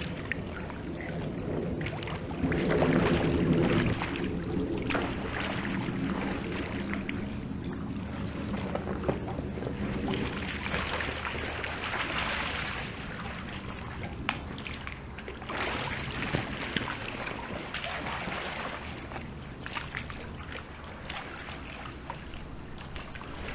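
Hands paddling and splashing in swimming-pool water beside an inflatable air mattress, a continuous irregular sloshing with small splashes.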